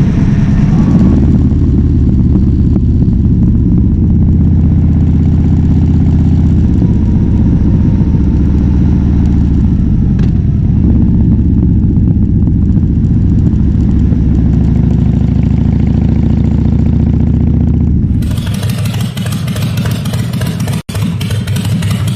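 Harley-Davidson Fat Bob V-twin running at a fairly steady engine speed through a KessTech ESM3 exhaust, with small shifts in pitch. About eighteen seconds in, the sound changes abruptly to a thinner, brighter engine sound with much less low end, and it briefly drops out near the end.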